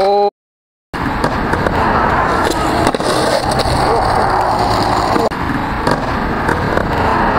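Skateboard wheels rolling on rough asphalt, with the sharp clacks and slaps of a board and skaters falling onto the pavement. The sound cuts out for about half a second near the start.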